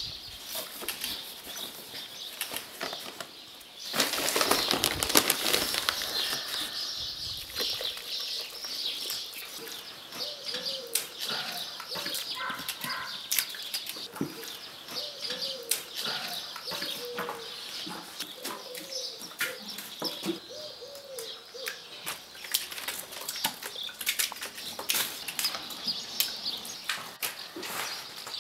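Wet liquid plaster thrown and poured from buckets onto a sculpture: repeated wet slaps and splashes, with a louder stretch of splashing starting about four seconds in and lasting a few seconds.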